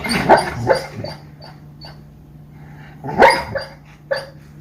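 Sleeping dog barking while dreaming: a couple of short barks near the start, a louder one about three seconds in, and a shorter one just after four seconds.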